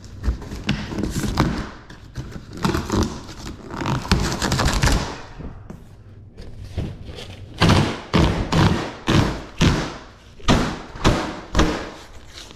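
Thumps and knocks: irregular handling knocks at first, then a steady series of heavy thumps about twice a second.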